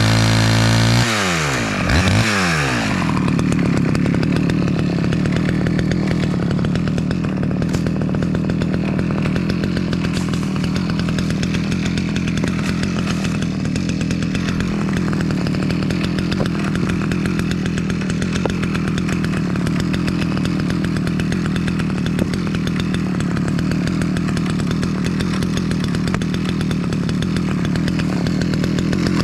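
Small two-stroke Stihl AV chainsaw revved high, then dropping back about a second in, with a brief blip, and idling steadily from then on.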